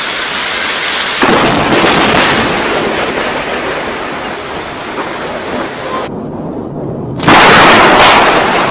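Thunderstorm: thunder rumbling over rain. About seven seconds in, a sudden, much louder crack of thunder breaks out and rolls on.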